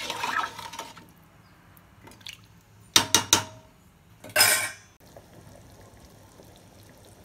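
Metal ladle knocking against a metal cooking pot: three sharp taps in quick succession about three seconds in, then a longer scraping clatter a second later, while stirring a watery chicken masala gravy.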